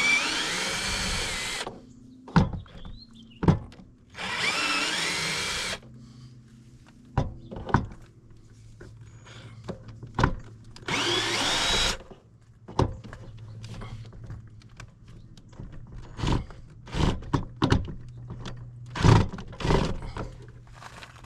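Power drill driving out Phillips head screws: the motor runs in three bursts, about two seconds, a second and a half and a second long, rising in pitch as it spins up. Short clicks and knocks of the bit and screws come between the bursts, over a steady low hum.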